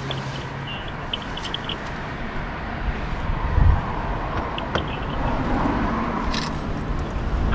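Steady road traffic noise with a low rumble swelling about three and a half seconds in, and short bird chirps near the start and again in the middle.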